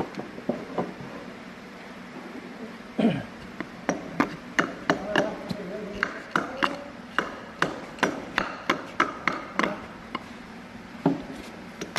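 Repeated hammer blows, about two a second, knocking at a tight-fitting part of a die-cutting cylinder to free it during disassembly; several strikes leave a short metallic ring.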